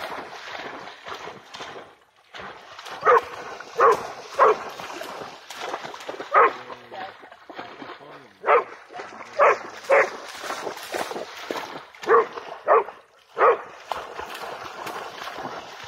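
Pharaoh Hound giving about ten short, sharp yipping barks, some in quick pairs, while it splashes at a run through shallow water.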